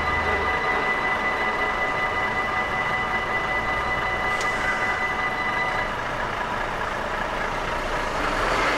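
Dutch level-crossing warning bell ringing over steady outdoor noise as the barriers rise after a train has passed, stopping about six seconds in once the crossing clears.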